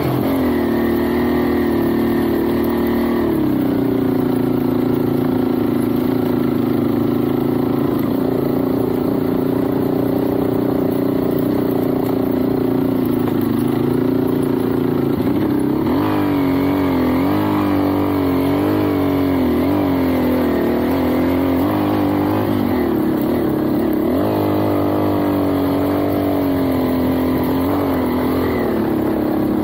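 A motorbike's engine running under way. Its pitch drops about three seconds in and rises and falls repeatedly with the throttle in the second half.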